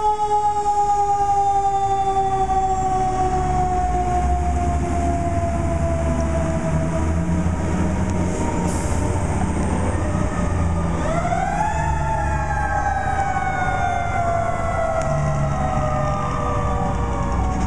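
Fire apparatus mechanical siren wailing: it coasts down in a long, slow falling tone, is wound up quickly again about eleven seconds in and falls off slowly, then starts rising once more at the end. A vehicle engine's low rumble runs underneath.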